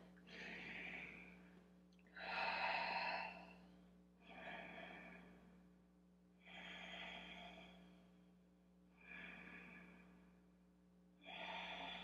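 A woman breathing slowly and deeply in a held stretch, faint, with about six soft breaths in and out. A steady low hum runs beneath.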